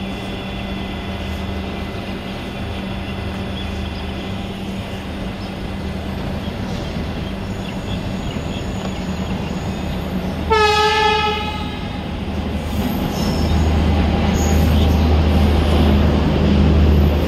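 Steady low hum of a train standing at the platform. About two-thirds of the way in, a train horn gives one short blast of about a second. In the last few seconds a louder low rumble builds.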